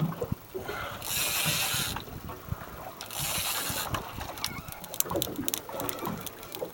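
Fishing reel's ratcheting drag letting out line in two short runs as a hooked blue shark pulls, followed by scattered clicks and knocks.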